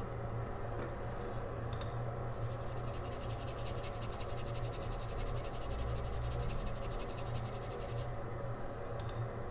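Small brush scrubbing the wet pads of an iPhone XR logic board, a soft rapid scratching from about two seconds in until near the end, over a steady low hum.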